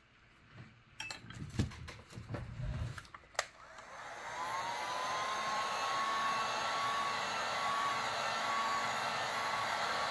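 A few knocks and clicks of handling, then a heat gun switched on about four seconds in: its fan whine rises and settles into a steady blowing hiss with a held tone, warming the epoxy coat on a tumbler so it swirls.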